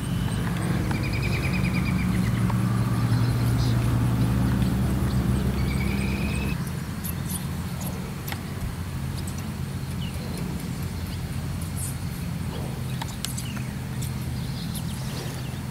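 A steady low engine-like hum, with two short rapid chirping trills from a small bird in the first six seconds. About six and a half seconds in the hum drops to a quieter level, with scattered light clicks over it.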